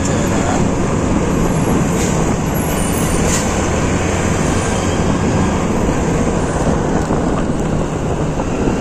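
A Honda Scoopy scooter riding along: steady wind and road noise on the rider's microphone over the scooter engine's even low hum.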